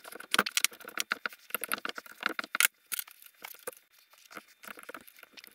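Quick irregular metallic clicks and taps of an Allen wrench working the exhaust manifold bolts as they are snugged up, dense for the first two and a half seconds, then sparser and fainter.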